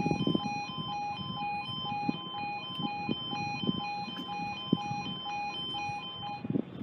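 Level crossing yodel alarm: two tones alternating quickly, high and low, while the barriers lower. It stops about six and a half seconds in, once the barriers are fully down.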